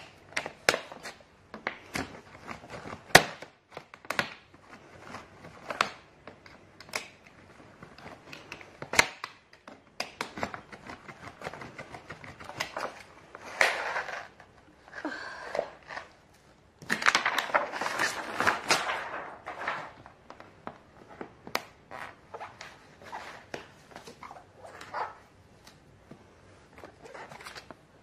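Hands working at a hard-shell suitcase wrapped in plastic film: irregular clicks, knocks and taps against the shell, the sharpest about three seconds in, with a longer rubbing, crinkling stretch about 17 seconds in.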